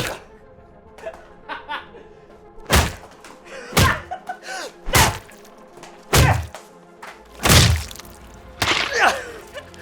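A series of heavy thuds of blows landing, about seven at uneven spacing a second or so apart, over background music.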